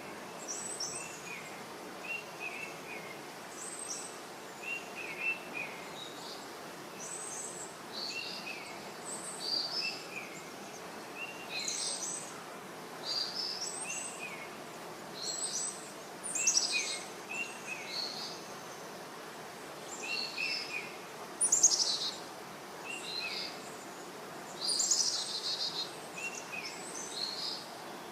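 Birds calling repeatedly over a steady rush of falling water from a waterfall cascade. Short paired calls and higher, quicker chirps come every second or two, with a louder burst of chirps about two-thirds of the way through.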